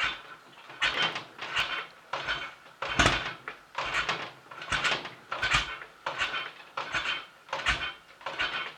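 Royal Enfield Interceptor Series 2's 750cc parallel-twin engine coming to life on its first start after a rebuild, running in uneven bursts about every three-quarters of a second rather than settling to a steady tick-over.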